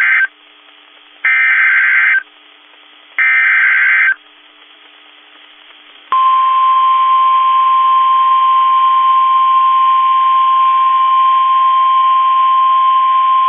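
NOAA Weather Radio EAS alert: short buzzy digital SAME header data bursts, the end of one and then two more of about a second each. About six seconds in, the steady single-pitch 1050 Hz Warning Alarm tone starts, signalling that a warning (here a tornado warning) follows.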